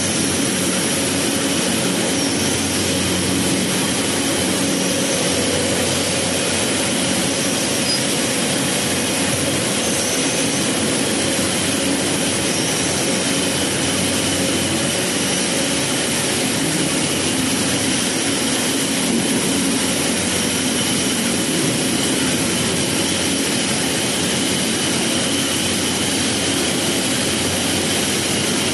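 Industrial egg boiling and shelling line running: machinery noise, a constant hiss with a few steady hums underneath.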